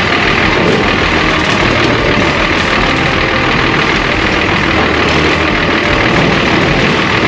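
Old farm tractor's engine running steadily, heard from the driver's seat as the tractor moves slowly.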